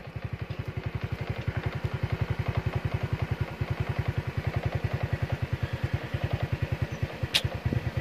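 Motorcycle engine running slowly with an even low beat of about nine or ten pulses a second. A single sharp click sounds near the end.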